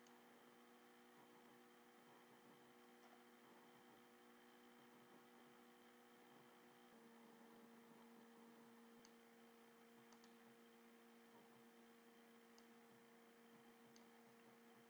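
Near silence: a faint steady electrical hum whose tones shift once partway through, with a few faint clicks.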